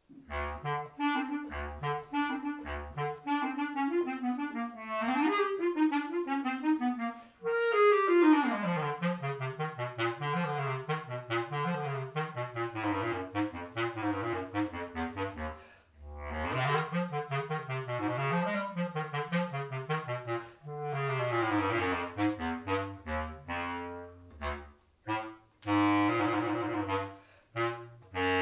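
Solo bass clarinet playing a fast, agile passage of quick runs and short detached notes, with a long slide down in pitch about eight seconds in. The playing breaks off briefly twice, near the middle and about three seconds before the end.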